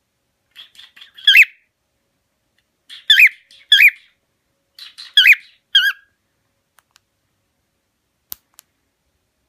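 Cockatiel calling: three bursts of short, loud, whistled chirps that sweep up and down in pitch, about a second and a half apart. A faint click follows near the end.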